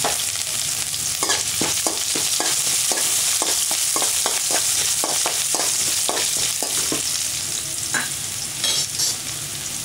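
Chopped ginger and garlic sizzling in hot oil with mustard seeds and lentils in an aluminium kadai. A spatula stirs and scrapes the pan about twice a second, stopping about seven seconds in.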